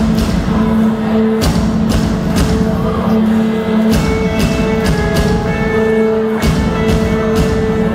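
Live rock band playing with electric guitars and drums: held chords that change about every two and a half seconds, with drum and cymbal hits.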